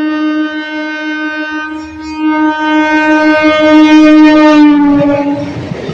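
EMU local train's horn sounding one long, steady note. It dips briefly about two seconds in, grows louder as the train nears, and drops slightly in pitch as it passes. Near the end the noisy rumble of the passing train takes over.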